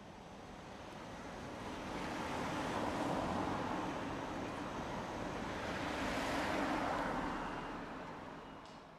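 Road traffic passing: the rushing noise of cars going by builds up over a few seconds, stays up with two swells, then fades away near the end.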